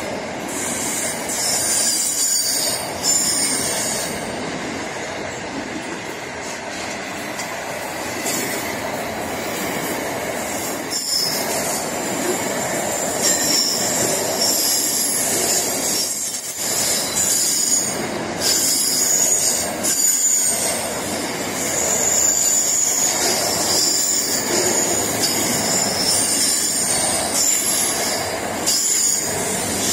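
Freight train's container wagons rolling past close by: a steady rumble of wheels on rail with high-pitched wheel squeal that comes and goes, and an occasional knock as wheels cross rail joints.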